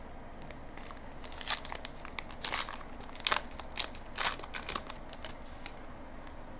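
Wrapper of a Star Wars Evolution trading card pack crinkling and tearing as the pack is opened, in a run of crackly bursts from about a second in to about five seconds in.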